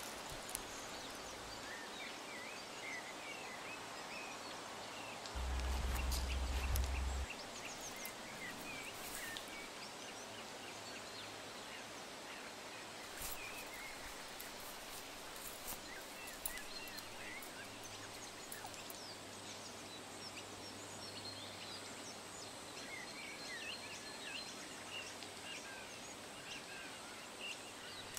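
Outdoor woodland ambience: small birds chirping faintly over a steady hiss, with a low rumble for about two seconds some five seconds in.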